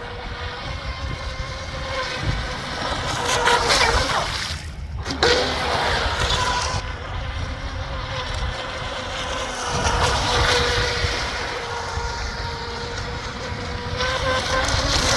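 Pro Boat Stealthwake R/C boat's electric motor and flex-shaft drive whining steadily as it runs, the pitch shifting with the throttle. The whine drops away briefly about four and a half seconds in, then picks up again. Wind rumbles on the microphone underneath.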